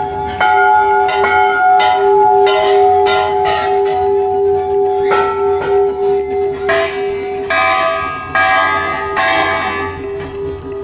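Hanging brass temple bells struck again and again at irregular intervals, several pitches ringing over one another, with one bell's hum held long underneath.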